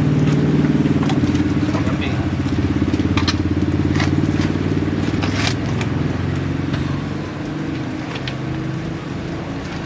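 A motor vehicle engine running steadily, growing somewhat quieter after about seven seconds, with scattered sharp clicks and clatters over it.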